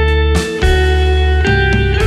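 Guitar music with plucked notes and chords changing about every half second.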